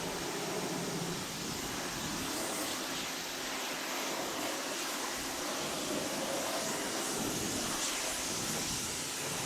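Electric pressure washer spraying water into a car's engine bay: a steady hiss of spray that does not let up.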